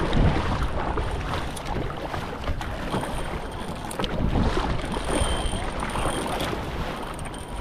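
Kayak paddle strokes splashing and swishing through choppy sea water, with wind buffeting the microphone.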